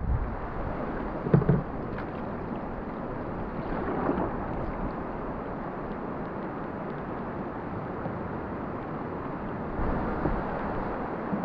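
Steady rush of river water with wind on the microphone, heard from a canoe on the river. A brief louder knock stands out about a second and a half in.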